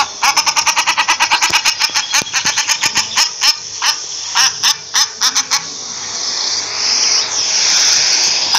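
Common shelduck calling: a rapid run of short, sharp calls, about eight to ten a second, that thins out after about four seconds. For the last two seconds or so it gives way to a steadier, rushing noise.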